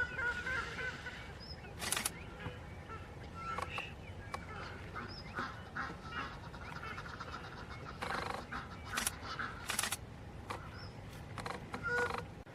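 Wild birds calling: many short, separate calls scattered throughout, with a few brief sharp bursts of noise between them.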